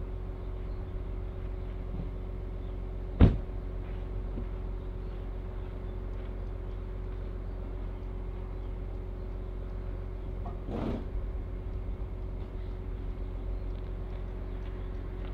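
An engine running steadily, with one sharp bang about three seconds in and a briefer, softer clatter near eleven seconds.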